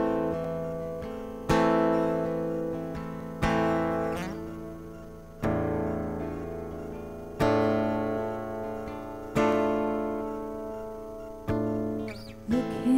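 Acoustic guitar intro: a single strummed chord about every two seconds, each left to ring and fade. A woman's voice begins singing right at the end.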